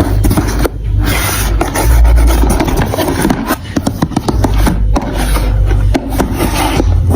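Marbles rolling and clattering through plastic marble run track pieces: a continuous rolling rumble with many quick clicks as the balls knock against the plastic.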